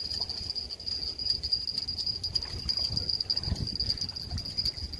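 Steady high-pitched insect trill, with low rumbling and knocks growing louder a few seconds in.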